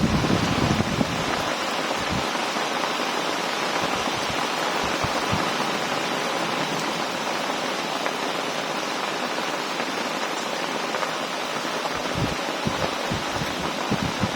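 Heavy rain pouring steadily, with gusts of wind buffeting the microphone in the first second or two and again near the end.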